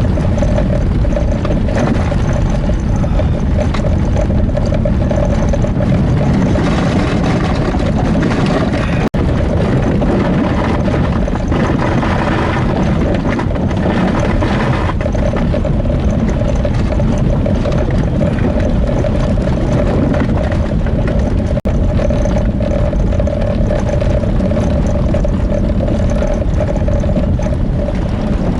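A vehicle driving on a snow-packed highway: a steady rumble of engine and road with a constant hum. The sound cuts out for an instant twice.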